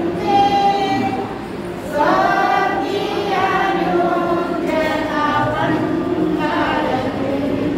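A group of voices singing together, holding each note for about a second before moving to the next.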